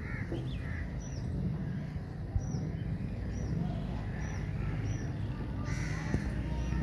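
Birds calling: a short, high chirp repeated about once a second, with scattered lower calls that grow stronger about six seconds in, over a steady low rumble.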